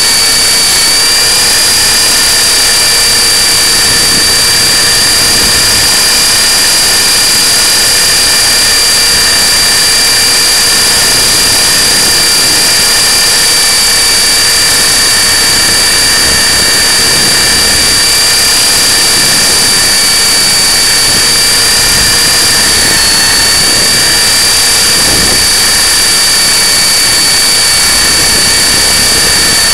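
E-Sky Honey Bee King 3 RC helicopter in flight, heard from a camera mounted on its frame: the electric motor, gears and rotor give a loud, steady high whine over a rushing hiss, with a brief dip in pitch about 23 seconds in.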